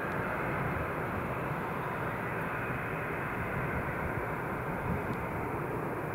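Boeing 737-800's CFM56-7B jet engines during the landing roll: a steady rumble of jet noise that holds even throughout.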